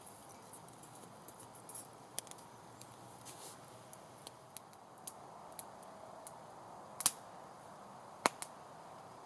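Small wood fire crackling, with irregular sharp pops and snaps over a soft steady hiss; the two loudest pops come about seven and eight seconds in.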